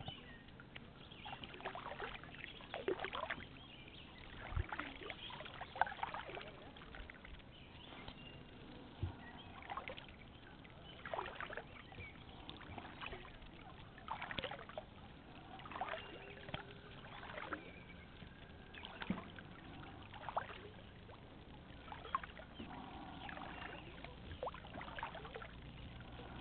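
Small splashes and drips of water around a kayak on calm water, coming every second or two, with an occasional low knock.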